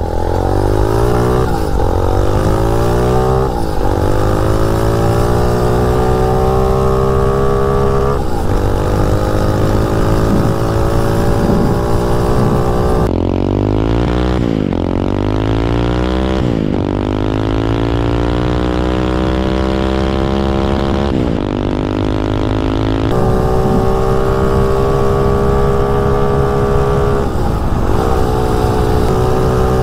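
Motovox mini bike's swapped-in 250cc dirt bike engine accelerating hard through the gears on its new gearing. The engine note climbs, then drops at each upshift, several times over.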